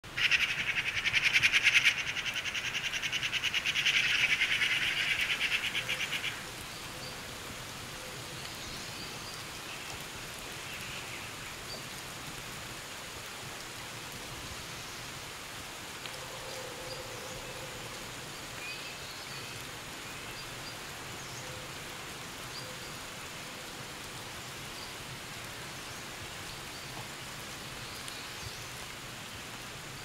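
A loud, rapidly pulsing insect buzz for about the first six seconds, cutting off suddenly. Then a steady hiss of light rain with scattered bird chirps.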